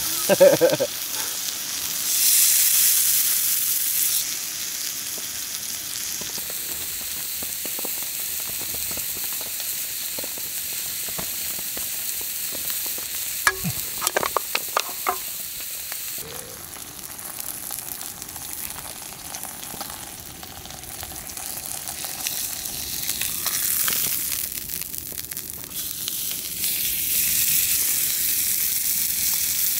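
Meat sizzling as it cooks, a steady hiss that swells and fades, with a few sharp clicks about halfway through.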